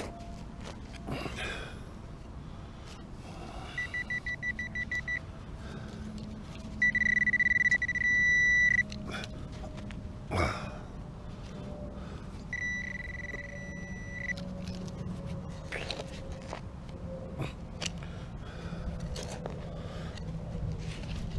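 Metal detector beeping over a buried target: a quick run of short beeps about four seconds in, then a loud steady high tone for about two seconds, and another steady tone near the middle. A thump about halfway through.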